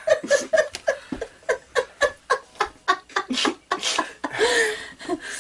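People laughing: a long string of short ha-ha pulses, several a second, ending in a drawn-out vocal sound.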